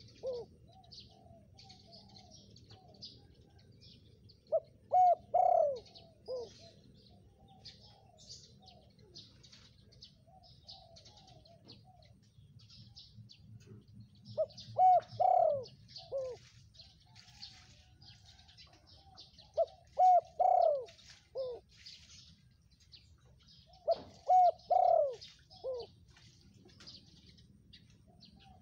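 Spotted dove cooing its song four times, each phrase a couple of short notes, a long loud coo and a short final note. Other birds chirp high and thin throughout.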